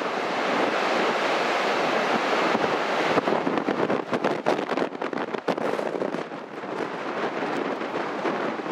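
Storm surf crashing on the beach in a nor'easter, with strong wind buffeting the microphone. The wind gusts make the sound choppy and fluttering for a few seconds in the middle.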